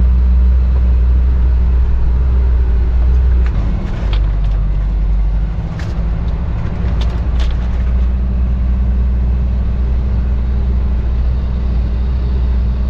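Isuzu NPS 4x4 truck driving slowly along a sandy bush track, a steady low engine and drivetrain rumble heard from inside the cab. The rumble eases briefly about four seconds in, and a few sharp knocks come through partway along.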